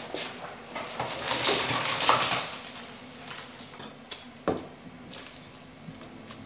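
Cooking sounds: a utensil clinking and scraping against cookware, loudest around two seconds in, with a sharp knock a little after four seconds.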